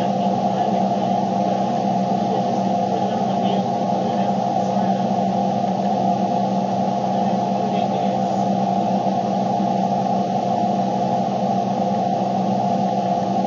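Steady droning noise inside a vehicle's cabin: an even rush with a constant hum and a couple of held tones in it, unchanging throughout.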